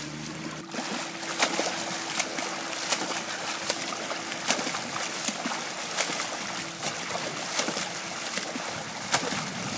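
Freestyle swimmer with a flat hand paddle splashing through the water, each arm entry a sharp splash about every three-quarters of a second over a steady wash of churned water. A faint steady hum runs underneath.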